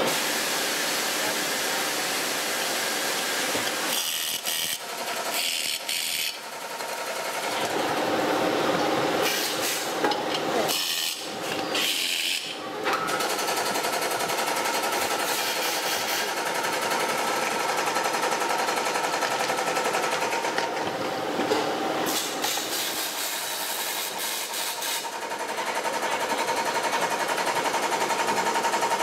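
Workshop machinery running with a steady mechanical hum, broken several times by short bursts of high hissing.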